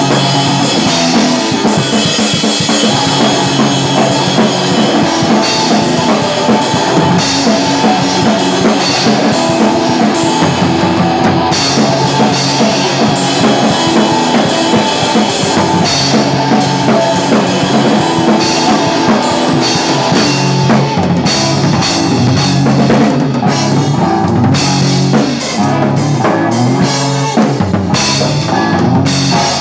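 Rock band playing live: a drum kit, with kick, snare and cymbals, drives a steady beat under an electric guitar through an amp. The kit, heard from right beside it, is the loudest part.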